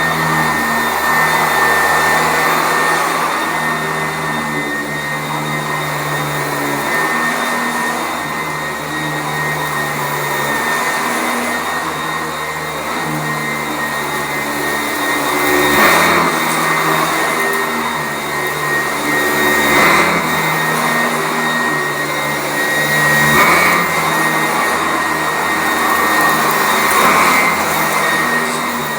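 Sanitaire SC899 commercial upright vacuum cleaner running on carpet with a steady high motor whine. In the second half it swells in loudness every few seconds.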